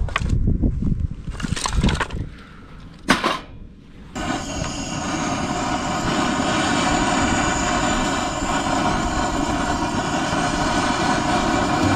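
Firewood being lit in a fire pit: knocks and crackling, with a sharp crack about three seconds in. From about four seconds a steady rushing roar starts abruptly as the fire is lit.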